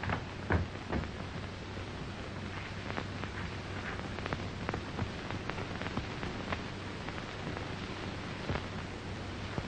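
Surface hiss and scattered crackle of a worn 1930s film soundtrack over a steady low hum, with two soft thumps about half a second and a second in.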